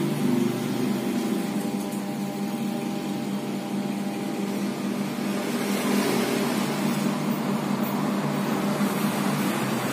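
A steady low mechanical hum with no sharp knocks or clicks.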